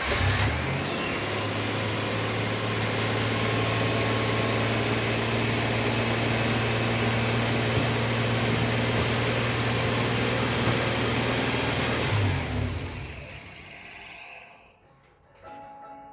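Starter motor cranking a Hyundai Galloper's LPG engine in one long, steady stretch of about twelve seconds without the engine catching, then stopping. This is a failed cold start of the vaporizer-fed LPG engine.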